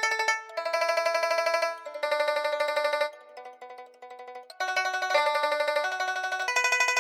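Outro music: a plucked-string melody of fast, rapidly repeated picked notes that change pitch every half second or so, dropping quieter for a moment around the middle.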